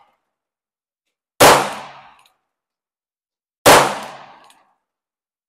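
Two shots from a Ruger New Model Single Six revolver firing .22 Magnum rounds, the first about a second and a half in and the second about two seconds later, each trailing off over about a second.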